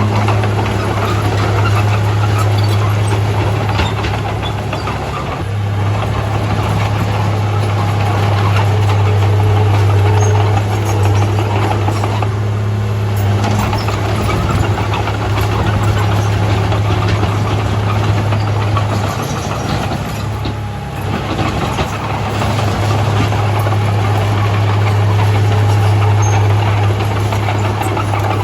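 Heavy diesel earthmoving machinery running steadily with a deep hum, the engine note dipping briefly a few times.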